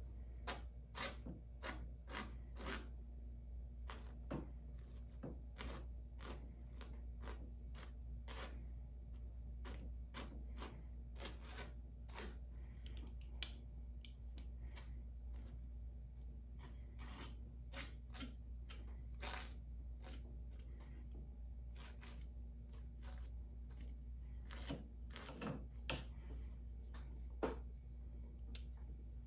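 Gritty acrylic texture paste being scraped and spread onto a canvas in short, irregular strokes, over a steady low hum.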